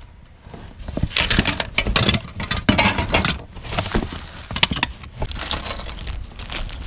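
Hands rummaging through a packed cardboard box: an irregular run of rustles, scrapes and small knocks. Near the end comes light clinking and crinkling from a plastic bag of loose metal costume jewelry being handled.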